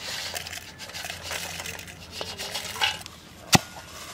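Crisp fried prawns rattling and sliding from a steel bowl into an iron mortar, then one sharp metal clank about three and a half seconds in as the iron pestle first strikes, the start of pounding them to powder.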